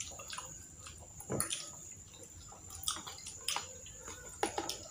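Irregular light clicks and taps of forks and sticks against a plastic food container and fried street food as pieces are speared and picked up.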